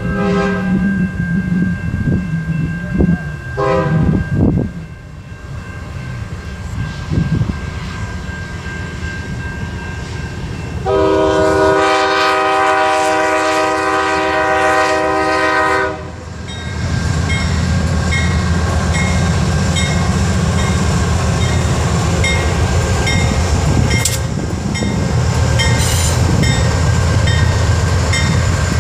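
Amtrak passenger train's diesel locomotive sounding its horn on the approach to a grade crossing: two short blasts in the first few seconds, then one loud long blast of about five seconds. The train then rumbles past close by, its wheels clattering over the rails.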